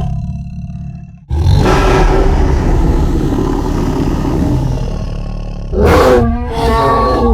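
Rancor monster roar sound effect: a call fades out, then about a second in a long, deep roar begins. A shorter, louder roar with a rising-then-falling pitch follows near the end.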